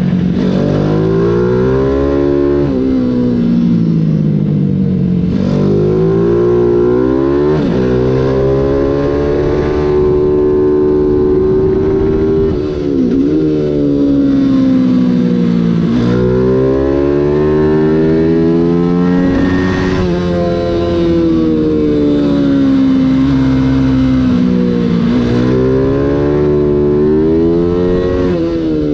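Engine of a 140 cc Mini GP race bike heard close up from onboard, revving hard and climbing in pitch, then dropping sharply again and again as the rider works up and down the gears and brakes into corners.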